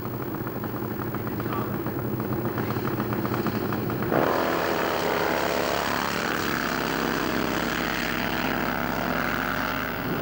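Drag-racing motorcycle engines running at the start line with a fast, even firing rhythm. About four seconds in they launch at full throttle, and the sound jumps suddenly louder as the bikes accelerate away.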